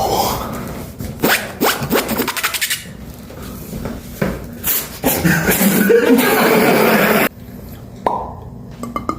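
Mouth-made beatbox sound effects: a run of clicks and pops, then a loud hissing rush about five seconds in that cuts off suddenly after two seconds, and a single click near the end.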